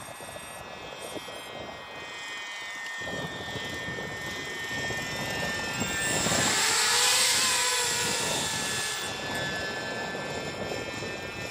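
Radio-controlled Raptor model helicopter in flight, its engine and rotor blades giving a steady high-pitched drone. It grows louder to a peak about seven seconds in as it passes close by, then fades as it flies away.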